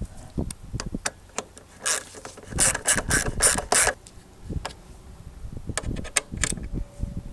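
Small socket ratchet clicking in short runs of quick pawl clicks as it snugs down the Torx screws holding a tail lamp assembly in place. The clicks are densest for a couple of seconds near the middle and grow sparser toward the end.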